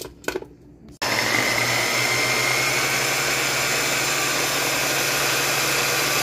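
Electric mini food chopper switched on about a second in and running steadily with a motor whine, grinding a soft butter, garlic and herb mixture.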